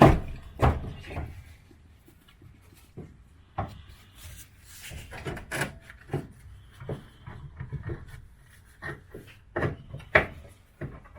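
Hand tools knocking, clicking and scraping against a seized Hydragas suspension knuckle joint as it is worked free, in irregular bursts. The loudest knock comes right at the start and another about ten seconds in.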